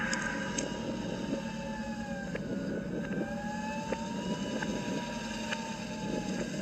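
Film soundtrack played backwards: a steady low hum under slowly gliding, wavering tones, with a few sharp clicks scattered through it.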